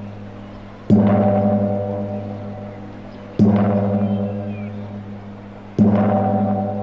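A large, deep-pitched gong struck three times at an even, slow pace, about two and a half seconds apart, each stroke ringing on and fading before the next.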